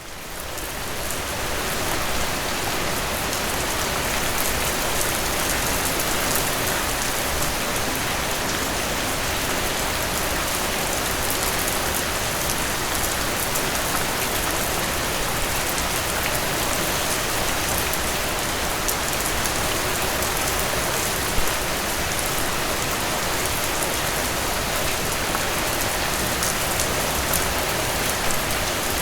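Steady rain, dense and even, mixed with the crackle of a wood fire in a fireplace; it fades in over the first two seconds, with one slightly louder pop about two-thirds of the way through.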